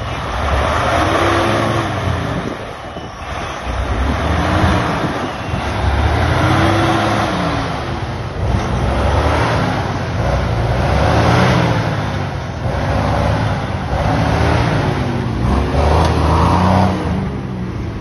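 Jeep Wrangler's engine revving up and down again and again under load as it climbs over sandy mounds, its pitch rising and falling every couple of seconds.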